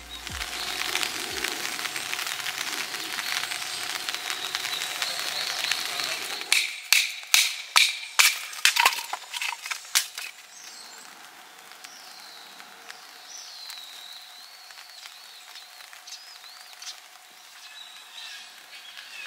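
Firewood being broken up into kindling for a campfire: a rustling noise for about six seconds, then about eight sharp cracks and knocks in quick succession. Birds chirp faintly once the cracking stops.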